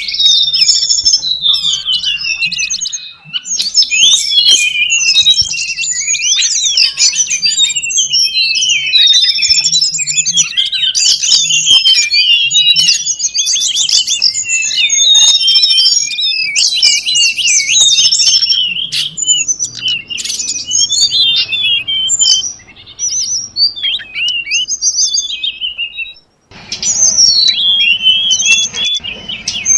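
Bird-luring recording: dense, overlapping high chirps and quick trills from many birds, with no pause for long. Near the end it cuts out for a moment and resumes over a different background hiss.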